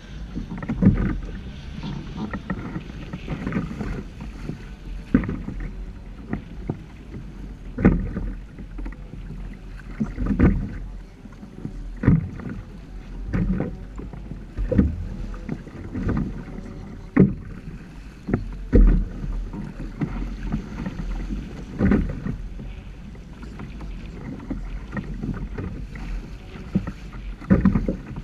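Water slapping and splashing against the hull of a Hobie Tandem Island sailing trimaran under way, in irregular hits every second or two. A steady low rumble of wind on the microphone runs underneath.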